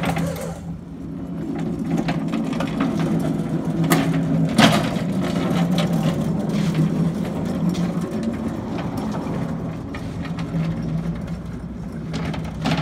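Manual push-type Big Joe walk-behind stacker rolling over concrete as it is pushed and turned: a steady low hum with rattling and scattered knocks from the wheels and frame, starting with a sharp clack.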